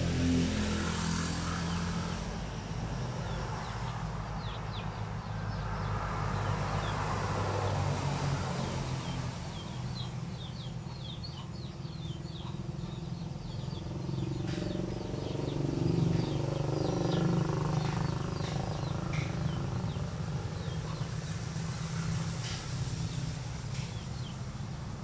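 A steady low motor hum, with many quick high chirps through the middle of the stretch.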